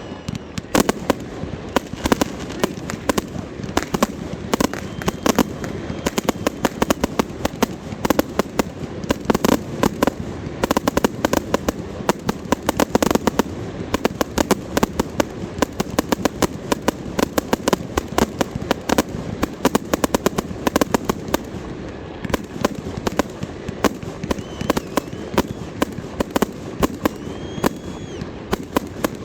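New Year fireworks and firecrackers going off all around in a dense, continuous barrage of sharp bangs and crackling pops, many per second, with a few faint whistles near the end.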